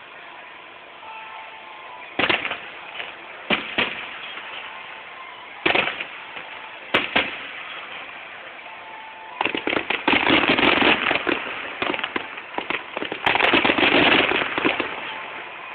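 Aerial fireworks shells bursting: a few single bangs spaced a second or two apart, then two dense rapid volleys of bangs and crackle, one about halfway through and one near the end.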